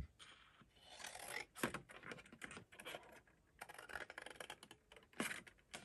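Scissors snipping through cardstock in short, faint, irregular cuts, with light rustling of the paper sheet.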